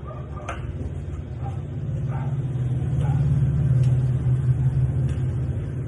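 Low rumble of a passing vehicle, swelling to its loudest about three to four seconds in and then fading.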